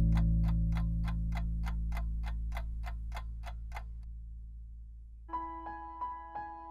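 Background music: a sustained chord slowly fading under steady clock-like ticking, about four ticks a second, which stops about four seconds in. A second later a new piano melody begins.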